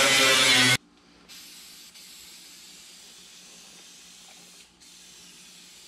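A grinder runs loudly against the steel of the truck's inner wheel arch and stops abruptly under a second in. An aerosol spray can of rust paint then hisses steadily as the inner panel is coated, broken twice for a moment.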